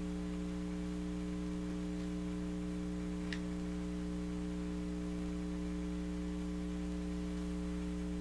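Steady electrical mains hum, a low buzz made of several fixed tones with no change, as heard in a broadcast feed when the programme sound drops out. A faint tick about three seconds in.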